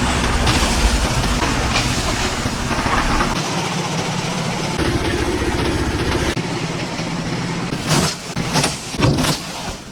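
Construction site noise during a manual concrete roof pour: a steady machine rumble, with several sharp knocks between about eight and nine seconds in.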